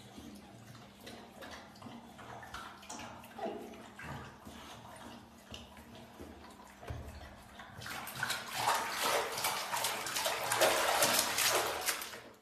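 Bath water splashing and sloshing in a small plastic tub, faint at first and much louder from about eight seconds in.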